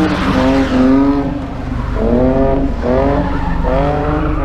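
Car engine revving high, its pitch climbing in repeated surges about a second apart over a steady low exhaust rumble.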